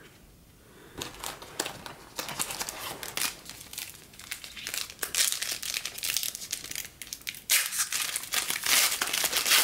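Foil wrapper of a Panini Diamond Kings baseball card pack crinkling as it is handled and torn open. It starts as scattered crackles about a second in and turns into dense, louder crinkling about seven and a half seconds in.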